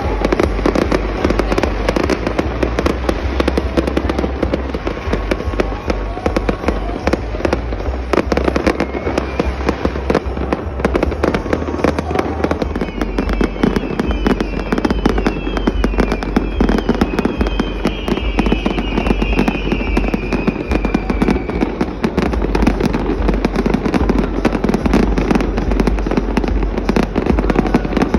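Fireworks going off in rapid succession: dense crackling and popping throughout, with several falling whistles about halfway through.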